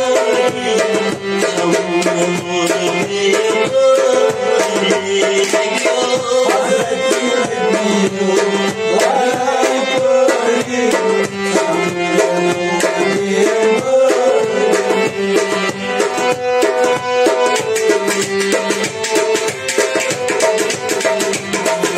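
Kashmiri folk music: a harmonium plays a melody over a steady drone, while a clay pot drum is struck fast and densely by hand. The pot strokes grow busier toward the end.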